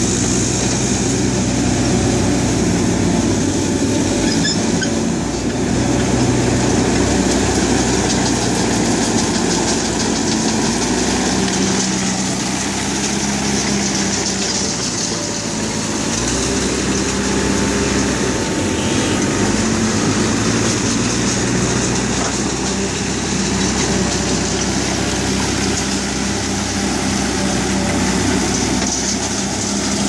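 Heavy diesel engines of a Caterpillar D5K crawler bulldozer and a hydraulic excavator running under load, their engine notes shifting in pitch now and then as the machines work.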